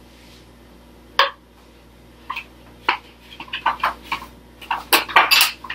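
Light clicks and knocks of kitchenware being handled on a counter. There is one sharp tap about a second in, like a spoon against the blender's travel cup, then scattered small clinks that bunch up near the end.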